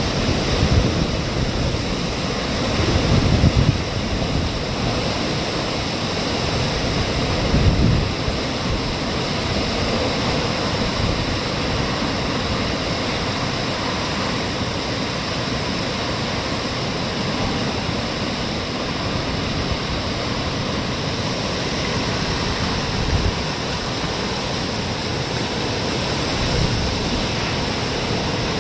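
Hurricane wind and heavy rain in the eyewall: a steady loud rush of wind and water, with gusts buffeting the microphone about 3 and 8 seconds in.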